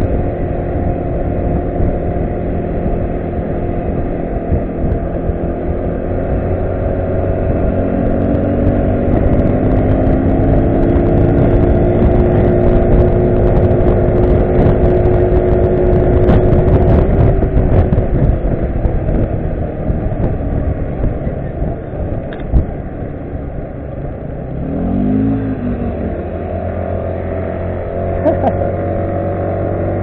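Single-cylinder engine of a Yamaha Cygnus RS 125 scooter running on the road, heard with heavy wind rumble on the handlebar camera's microphone. The engine note rises about eight seconds in, eases off a few seconds before the twenty-second mark, and makes a quick rise and fall near twenty-five seconds.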